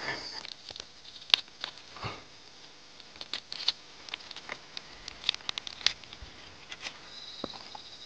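Dry leaf litter and soil crackling and snapping in irregular little clicks as hands dig through it and pull shoots from the ground.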